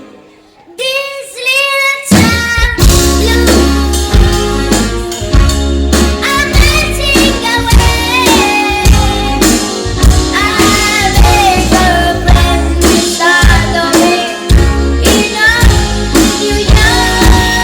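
A young female singer singing live with a rock band. After a brief pause, a melodic lead-in comes in alone, then bass, drums and guitar enter about two seconds in and carry on under her voice.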